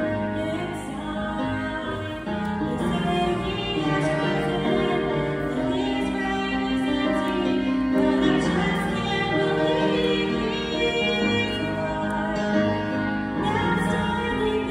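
A woman singing a slow gospel song into a microphone over instrumental accompaniment, heard through the church PA.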